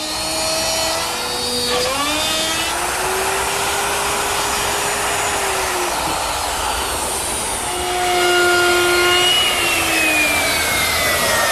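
Handheld electric router with a 3/8-inch straight bit and guide collar running and cutting through wood along a template, the motor's pitch dipping and recovering as the bit takes load. It gets louder about eight seconds in.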